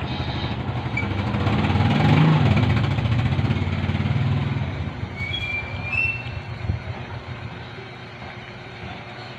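A motor vehicle passing by: a deep engine rumble swells to a peak about two seconds in and fades away by about five seconds.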